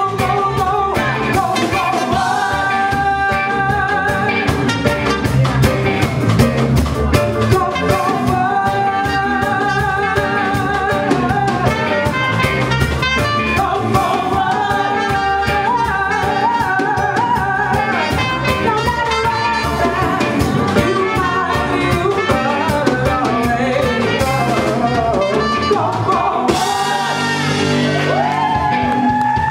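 Live reggae band playing, with drums, bass and guitar under a woman singing.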